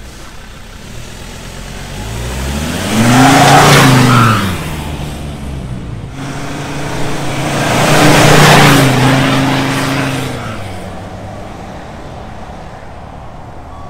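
Ford Ranger Wildtrak pickup's diesel engine through a full stainless-steel exhaust with a custom downpipe, accelerating twice: the engine note rises and falls back about three seconds in, then again near the middle, with a lower steady running note between.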